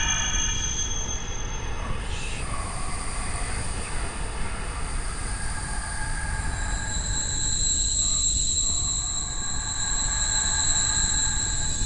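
Horror ambience: a steady low rumble under several sustained high, shrill squealing tones. The tones change about two seconds in, and a stronger high squeal takes over around the middle.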